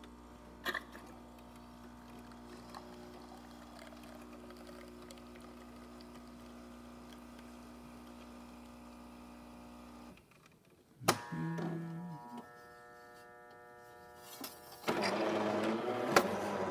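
Jura Impressa S9 superautomatic espresso machine brewing: its pump runs with a steady buzzing hum for about ten seconds while the espresso pours, then stops. A sharp click follows and a motor runs briefly as the brew unit moves. In the last couple of seconds there is a louder rushing noise.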